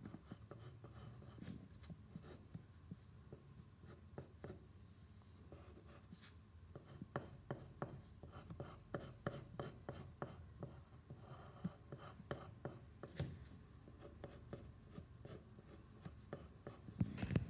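Pencil scratching on paper in many faint, short, irregular strokes: shading a drawing.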